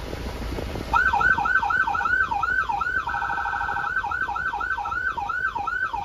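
Fire truck's electronic siren switched on about a second in, sweeping rapidly up and down in a yelp of about three sweeps a second, then twice switching to a fast rapid-fire warble before sweeping again.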